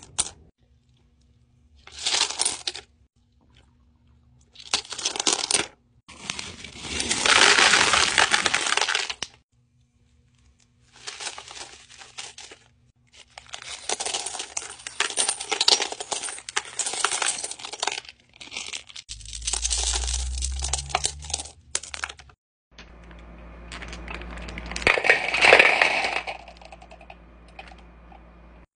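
Small tumbled stones and crystal chips being stirred and poured by hand, rattling and clinking against each other in a run of separate bursts, the longest and loudest a few seconds in. A faint low hum sits under the later bursts.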